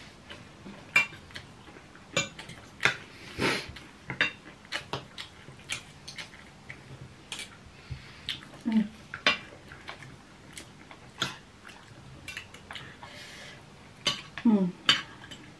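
Metal spoons and forks clinking and scraping on dinner plates while eating, in irregular sharp clicks.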